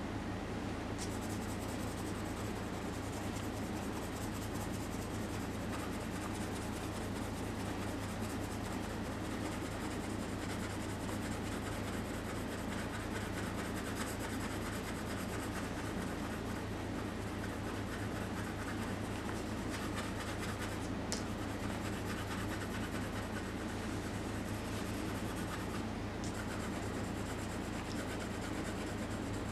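Graphite pencil shading on drawing paper: a steady, scratchy rubbing, over a low steady hum.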